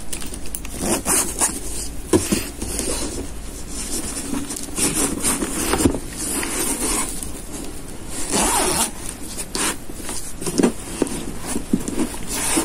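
Hands handling a striped crocheted zip pouch: its ridged yarn fabric and zipper rustle and rasp in irregular strokes.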